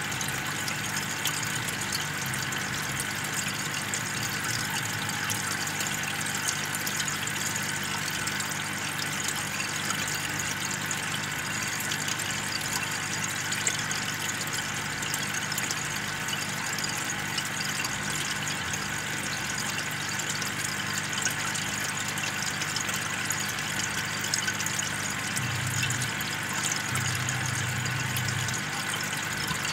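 Aquarium aeration: an air pump humming steadily while an air stone on its airline bubbles continuously in the tank, with faint ticks of bursting bubbles.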